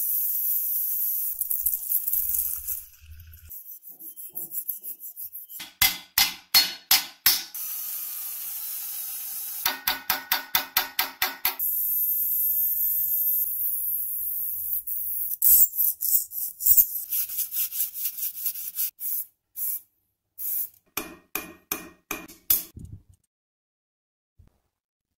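Rotary abrasive discs on rusty steel, a drill-mounted sanding disc and then an angle grinder's flap disc, running as a steady high hiss. The hiss comes in stretches, broken by quick runs of sharp, evenly spaced clicks.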